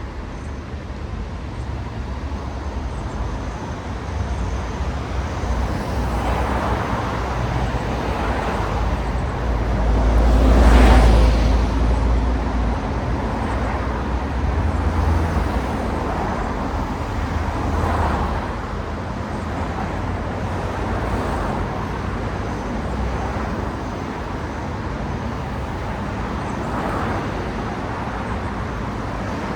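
City road traffic with cars passing one after another over a steady hum of tyres and engines. The loudest pass comes about eleven seconds in, with a deep low rumble, and smaller passes swell and fade at intervals.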